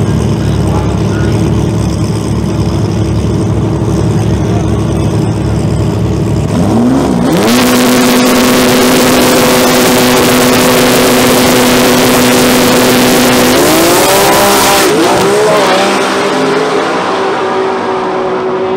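Nissan 240SX drag car's engine idling with a deep rumble, then revved up about seven seconds in and held at a steady high rpm with a loud crackle for several seconds. Near the end the pitch sweeps as it launches, and the noise drops away as the car pulls off down the track.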